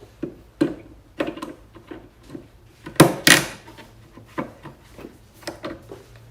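Tools and parts being handled: a series of short knocks and clicks, with a louder knock and a brief scraping rush about three seconds in.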